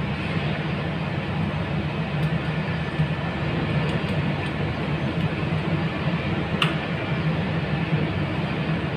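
Steady low rumble of background noise, with a faint click about two-thirds of the way through as a screwdriver works wires into circuit-breaker terminals.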